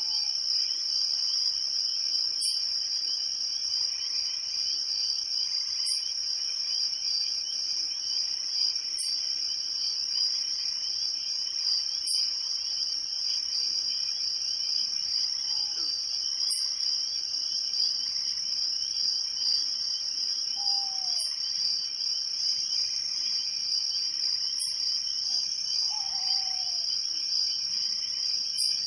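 Chorus of crickets chirping steadily and densely at night, with a sharp higher chirp about every three seconds. A few faint short falling calls come in during the second half.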